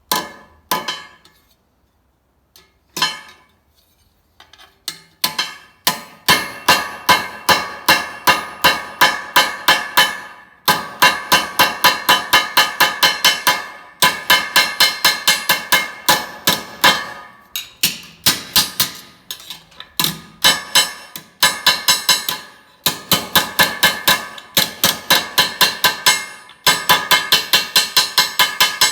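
Hammer blows on sheet steel, knocking down tucks so the panel shrinks and gathers up. A few spaced strikes come first, then runs of quick, ringing blows at about three a second with short pauses between them.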